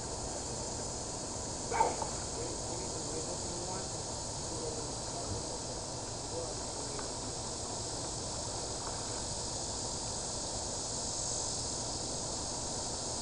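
Steady high-pitched insect buzzing in the open air, with faint distant voices and one short sharp knock about two seconds in.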